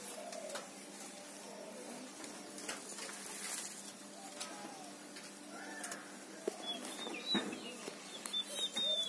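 Doves cooing over and over, low arching calls, with a couple of light knocks partway through and a small bird's high chirps near the end.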